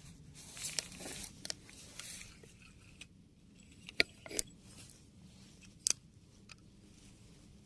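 Scattered close clicks, crackles and rustles of handling, with two sharper clicks about four and six seconds in.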